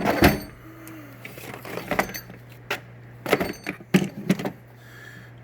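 Metal hand tools clinking and rattling as they are handled, with several sharp knocks in clusters, over a steady low hum.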